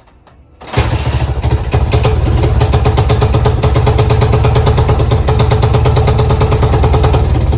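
Dirt bike engine catching under a second in and then running steadily with a fast, even firing beat. It starts after refusing to start, its spark plug just cleaned with brake cleaner.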